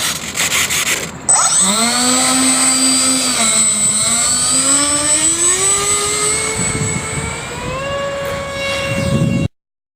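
Twin 64 mm electric ducted fans of an RC A-10 Warthog model whining, the pitch climbing steadily as they spool up under throttle, with a steady high-pitched hiss above. About the first second is a noisy rubbing sound, and the whine cuts off suddenly near the end.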